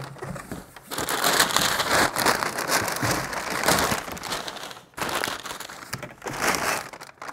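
Packaging of a supercharger kit's parts bags crinkling and rustling as it is handled. It comes in two stretches with a brief pause about five seconds in.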